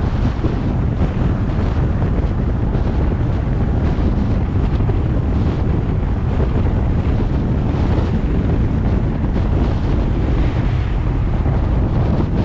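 Steady wind rushing over a GoPro action camera's microphone on a moving car, with a constant low rumble underneath.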